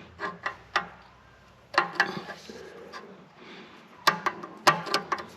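Irregular sharp metal clicks and knocks as a gear is worked down onto its shaft inside a tractor's main case. They come in a few quick runs: several in the first second, a cluster near two seconds, and more near the end.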